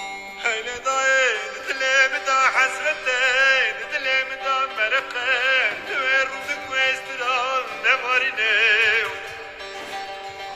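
A man singing a Turkish folk song in long, melismatic phrases with heavy vibrato over sustained instrumental accompaniment. The voice drops out about nine seconds in, leaving the accompaniment.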